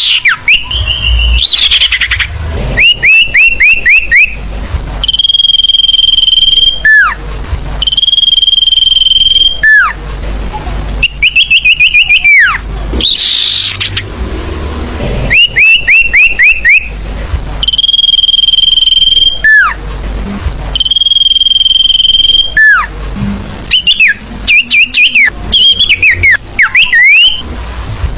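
Sirfu bird song used as a lure call, played loud and repeated over and over. Quick runs of four to six high falling whistle notes alternate with long, steady high whistles that drop sharply at the end.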